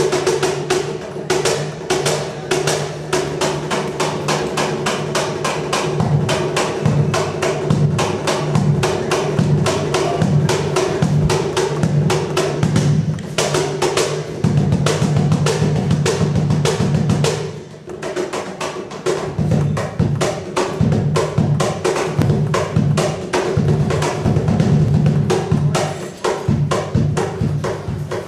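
Live hand-percussion solo: rapid, dense drum strokes over a steady low drum tone, with a brief drop in loudness about two-thirds of the way through.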